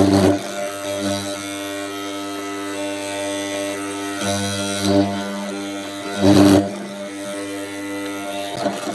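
Background music with a sustained droning tone and a few brief swells.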